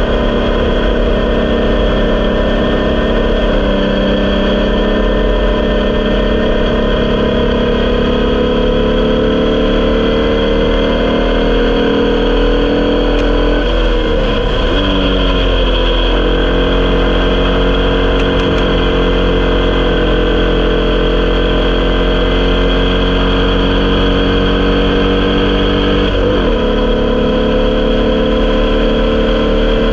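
Onboard sound of an Elfin Crusader Formula Vee race car's 1200cc air-cooled VW flat-four engine running hard at racing speed. The engine pitch falls sharply and recovers about 14 seconds in and again near 26 seconds, then climbs steadily as the car accelerates.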